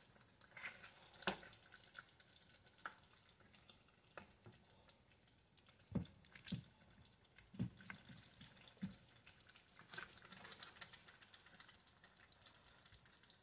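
Slotted serving spoon working thick ndole stew in a ceramic bowl: faint wet squelches of the stew and scattered light clicks and taps of the spoon against the bowl, with a few soft thumps in the middle.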